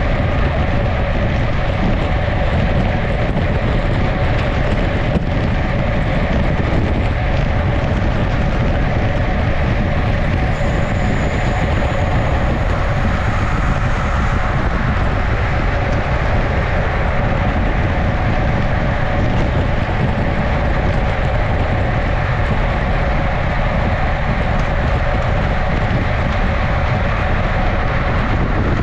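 Steady wind rush on the microphone and road-bike tyres humming on asphalt at about 55 km/h in a racing bunch, with one brief click about five seconds in.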